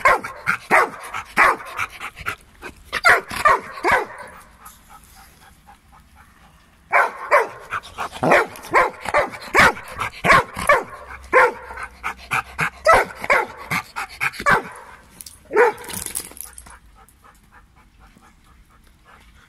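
Dog barking in quick repeated runs, about two or three barks a second. There is a pause of a few seconds after the first run, then a longer run and a short last one. It goes quiet near the end.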